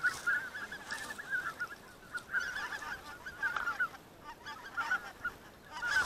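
A flock of greater white-fronted geese calling in flight: many short, high calls overlapping one another, fairly faint, with a brief lull about four seconds in.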